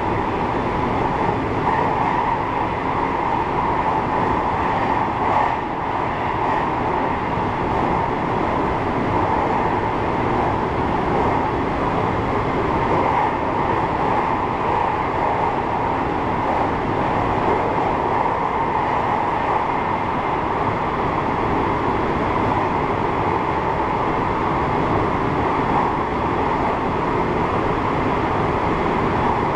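JR 223-series electric train running steadily, a continuous rumble of wheels on rail and traction noise heard from inside the driver's cab.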